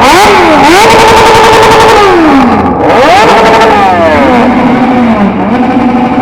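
Engine with a four-inch exhaust being revved hard: the pitch climbs sharply, holds high for about a second, then falls away. This happens twice, and the engine settles to lower revs near the end.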